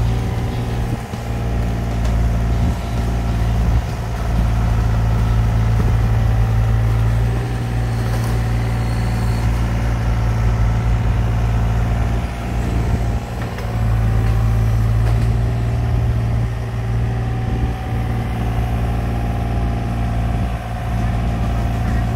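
Amphibious excavator's engine running steadily under work, a constant low hum with a few brief dips in level.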